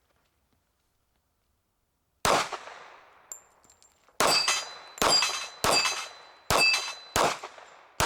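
Seven .45 ACP shots from a Springfield Range Officer Compact 1911 pistol, the first about two seconds in, then the rest in a quick string less than a second apart. Most shots are followed by the ring of a steel disc target being hit.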